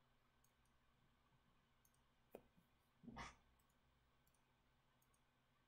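Computer mouse clicks over near silence: a few faint ticks, one sharper click a little past two seconds, and a short, duller thump about a second later.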